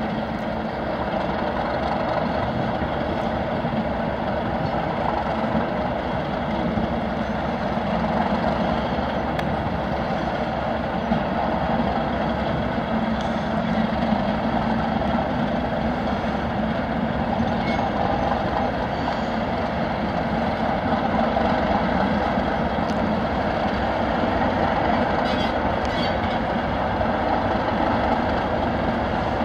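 Two Class 37 diesel locomotives working together, their English Electric V12 diesel engines running steadily as the pair moves slowly, propelling a flask wagon.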